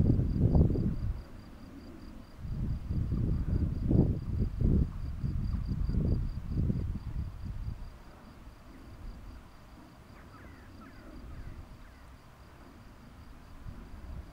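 A meadow insect trills steadily on a high, rapidly pulsing note. Over it, low rumbling gusts buffet the microphone for the first half, then ease off. A few faint chirps come about ten seconds in.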